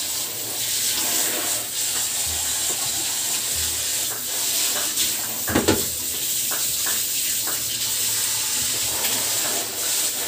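Water boiling hard in a stainless steel steamer pot over a gas burner: a steady hiss of steam, with a brief knock about five and a half seconds in.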